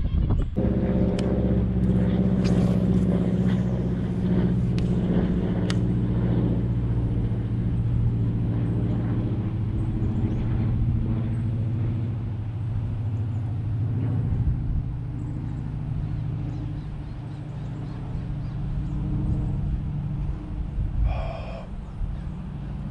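A motor running at a steady pitch, a low hum that starts about half a second in and fades over the second half, with a few sharp clicks in the first few seconds.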